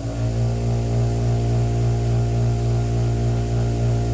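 Bench grinder's electric motor running at full speed, a steady hum.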